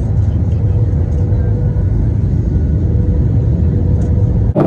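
Airliner cabin noise on descent: a steady low rumble of engines and airflow with a faint steady hum. The sound changes abruptly just before the end.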